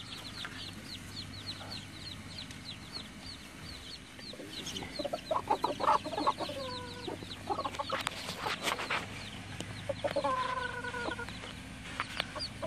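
Chickens clucking, with drawn-out calls, one about five seconds in and one held for about a second near ten seconds in. Sharp clicks around eight seconds.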